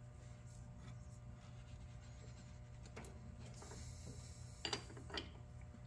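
Faint metallic clicks and scrapes of a wrench being fitted to and pulled on an overtight spin-on oil filter, a few clicks in the second half, over a low steady hum.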